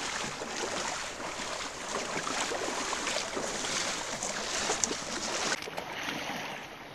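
Water splashing and sloshing as people wade through a shallow river, their legs and trekking poles churning the water in irregular strokes.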